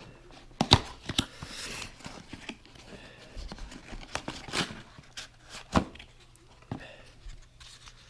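Small plastic parts and their packaging box being handled: a string of sharp clicks and knocks, loudest about a second in and near the end, with rustling between as the pieces are worked loose from the box.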